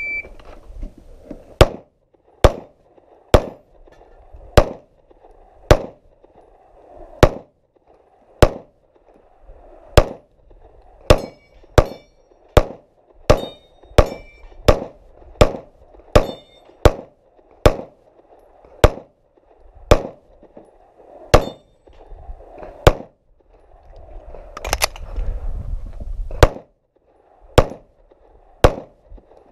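A shot timer's short beep, then a pistol firing about two dozen shots, spaced roughly a second apart and quicker in the middle run, at steel targets. Some shots are followed by a brief metallic ring.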